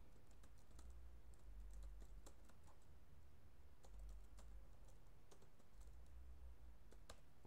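Faint computer keyboard typing: irregular keystroke clicks as an email address is typed in, with a sharper click about seven seconds in.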